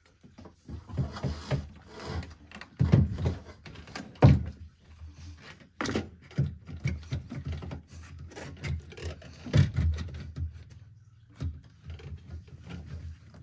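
New plastic coolant degas bottle being worked by hand into its mount: irregular hollow knocks, bumps and rubbing of plastic against the bracket as its feet are lined up, with a few sharper knocks, the loudest about four seconds in.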